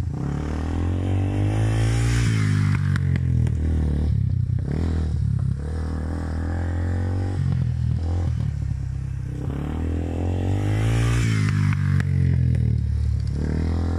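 Yamaha Serow 225's single-cylinder four-stroke engine, breathing through a SUDCO PWK28 flat-slide carburettor and an RSV aftermarket muffler, revving up and shutting off repeatedly as the bike is ridden hard on dirt. There are two long rising pulls, about two seconds in and again near the end.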